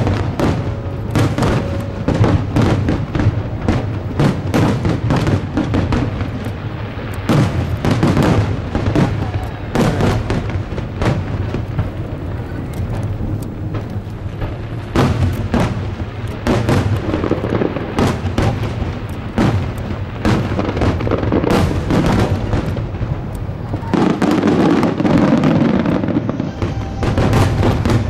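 Fireworks bursting in rapid succession, a dense run of bangs and cracks with a louder, more packed volley near the end, over music.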